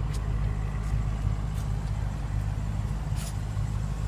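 Steady low hum of an idling vehicle engine, with a few faint clicks.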